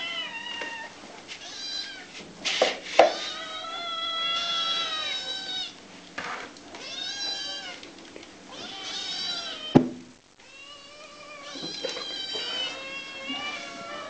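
Several kittens mewing over one another, high cries that rise and fall, one after another with hardly a gap. A few sharp knocks cut through, the loudest about three seconds in and again near ten seconds.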